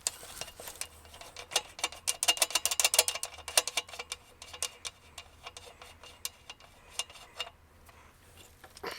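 A rapid run of light metallic clicks and rubbing as metal parts of a trike's front fork steering head are worked by hand. The clicks are densest from about a second and a half to four seconds in, then come scattered until about seven and a half seconds.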